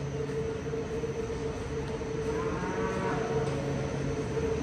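Steady hum of large barn circulation fans, with a Holstein cow mooing once about two and a half seconds in, for about a second.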